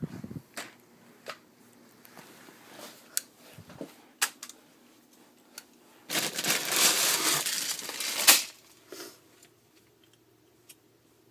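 Handling noise: scattered clicks and knocks, then a longer crinkling rustle lasting about two seconds that ends in a sharp click.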